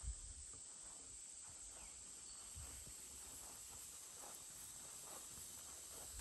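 Steady high-pitched drone of insects in the surrounding trees, with a few soft low thumps of footsteps, one at the start and one about two and a half seconds in.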